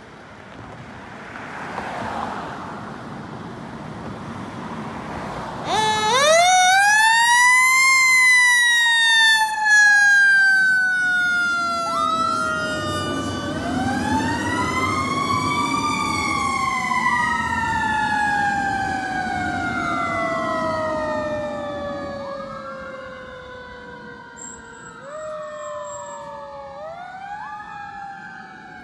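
Fire pumper's Federal Q mechanical siren, starting about six seconds in after the truck's engine noise. It winds up in a sharp rising wail, then coasts down slowly, and is wound up again several times as it fades with distance. Before the siren starts, the pumper's engine runs as it pulls out.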